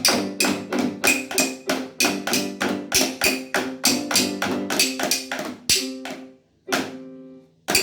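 Music with a quick, even beat of sharp percussive strikes over pitched notes, which stops for a moment near the end before the strikes resume.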